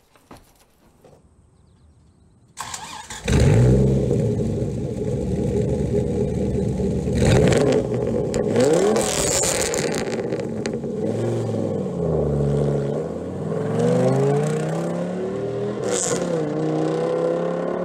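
The 8.3-litre V10 Viper engine of a 2004 Dodge Ram SRT-10 starts about three seconds in and runs loud through its twin exhausts. It is revved up and down a few times, then rises in pitch through a gear change near the end as the truck accelerates away.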